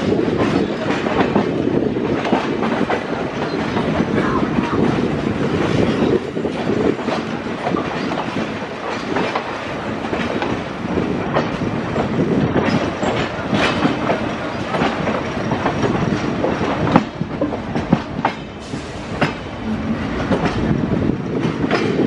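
Indian Railways passenger train heard from aboard a moving coach: a steady running rumble with steel wheels clattering over rail joints and points, and a few sharper knocks in the later part.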